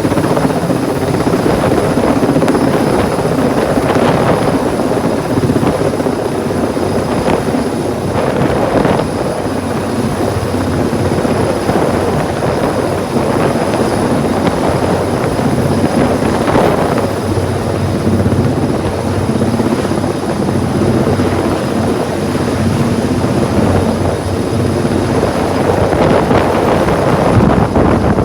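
Helicopter running close by: a loud, steady rotor chop that swells and eases slightly, with a thin high whine held steady above it.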